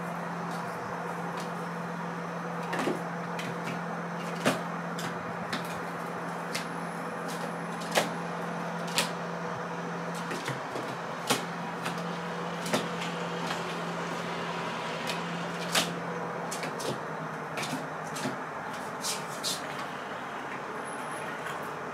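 Irregular sharp clicks and knocks, about a dozen, as a Eurasian red squirrel clambers on a hanging coconut-shell feeder and its metal stand, over a low steady hum that fades out near the end.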